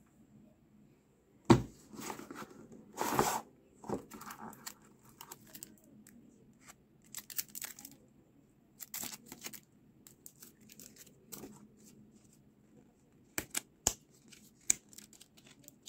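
Watch packaging being handled: a cardboard box and cellophane-wrapped warranty card and papers. A sharp knock comes about one and a half seconds in, followed by a short tearing rustle. After that, small clicks and crinkles of plastic and card are scattered through.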